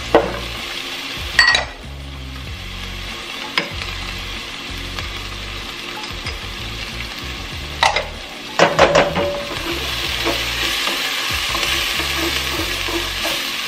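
Minced garlic and ginger frying with onions in butter in an enameled pot: a steady sizzle, stirred with a plastic spoon, with a few sharp knocks of the spoon and a small bowl about a second and a half in and again around eight to nine seconds. The sizzle grows louder in the second half.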